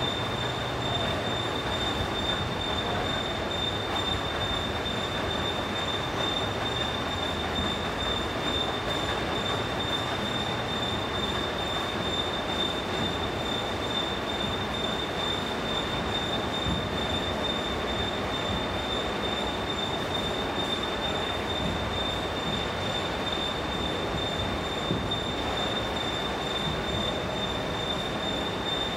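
A 150-ton hydraulic rubber moulding press running: a steady mechanical rushing noise with a constant high-pitched whine held over it.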